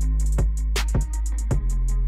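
Background music with a steady drum beat, quick hi-hat ticks and a sustained bass line.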